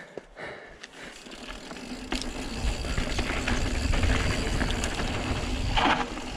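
Santa Cruz Megatower enduro mountain bike rolling fast down a hardpacked dirt trail: tyre noise on the dirt with light clicks and rattles from the bike. A low rumble of air and tyres builds from about two and a half seconds in as speed picks up, with a brief scrubbing rush near the end.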